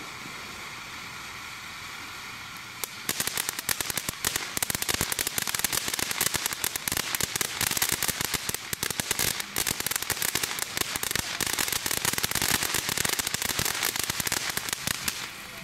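TNT Fireworks Surf's Up ground fountain firing: a steady spraying hiss that turns into dense, rapid crackling about three seconds in. The crackling runs until near the end, then drops back to the hiss.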